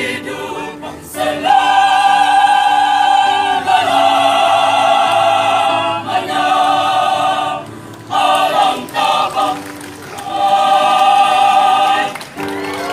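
Mixed choir of men and women singing long held chords in phrases a few seconds long, with short breaks between them.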